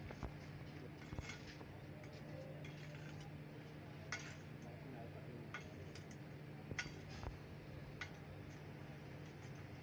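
Iron rod clinking and scraping against a steel crucible while molten aluminium is stirred and skimmed of dross: several sharp, separate metal clinks over a steady low hum.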